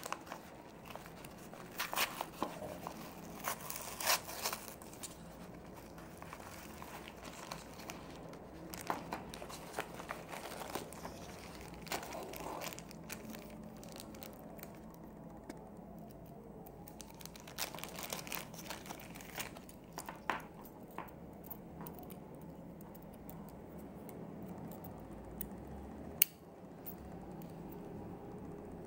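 Paper padded mailing envelope being torn open and crinkled, then small plastic zip bags rustling as they are handled. The sharpest crackles and tears come in the first few seconds, and a single sharp click comes near the end.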